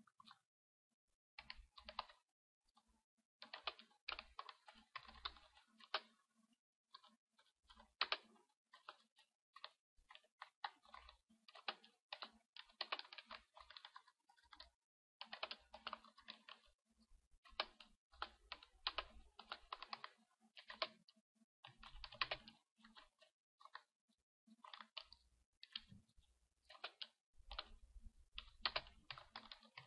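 Typing on a computer keyboard: faint keystrokes in quick runs, broken by short pauses.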